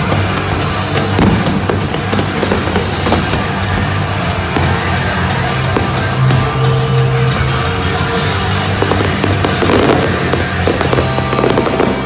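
Fireworks going off in quick succession, with many sharp bangs and crackles, over loud music with a steady bass line.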